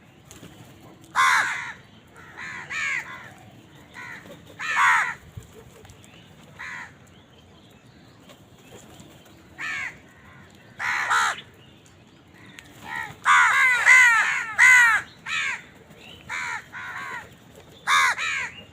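Crows cawing: single harsh caws at irregular gaps, with a quick run of several overlapping caws about two-thirds of the way in.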